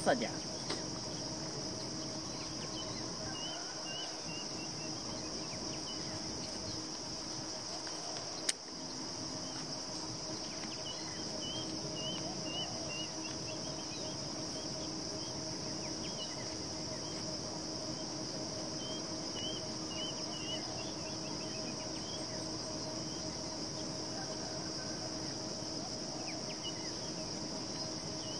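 Steady high-pitched insect chorus with no break, with a low steady hum under it and now and then a quick run of short chirps. A single sharp click about eight and a half seconds in.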